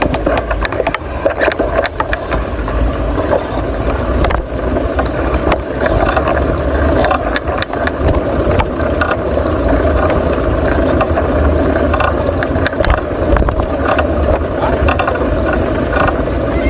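Steady riding noise on the road: a continuous rumble with frequent small rattles and scrapes from the ride, and wind buffeting the microphone.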